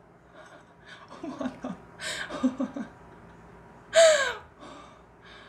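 A woman's excited gasps and breathy giggles, then about four seconds in a loud, high cry that falls in pitch, as she laughs with her hand on her chest.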